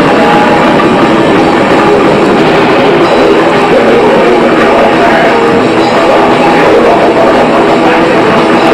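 Death metal band playing live: distorted electric guitar and drums in one dense, loud, unbroken wall of sound.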